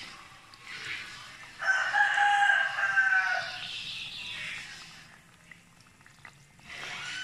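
Oil sizzling around battered banana slices deep-frying in a pot, with a rooster crowing loudly in one long call starting about a second and a half in.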